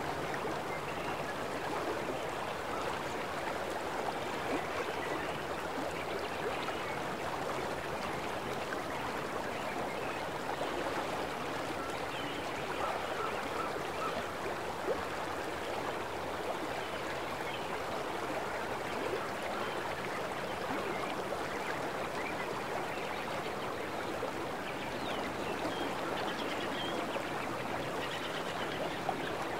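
River water flowing steadily over a shallow riffle, an even, unbroken rushing.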